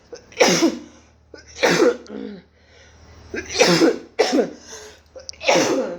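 A person coughing repeatedly: five hard, separate coughs over a few seconds. It is a COVID-19 cough, the kind she says sets in whenever she talks.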